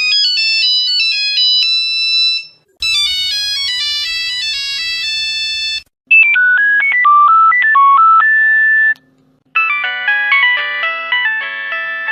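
Nokia phone ringtones played one after another: four short electronic melodies of about three seconds each, each cut off with a brief silence before the next.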